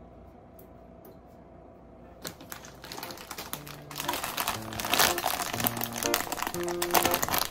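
A plastic bag of hotcake mix crinkling as it is picked up and handled, starting about two seconds in and loudest near the end. Background music with sustained notes comes in partway through.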